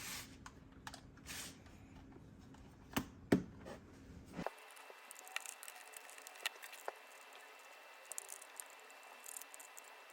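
Scattered small clicks, taps and rustles of hands handling small plastic parts, with a couple of louder knocks about three seconds in. About four and a half seconds in the low background hum stops abruptly, and fainter clicks continue.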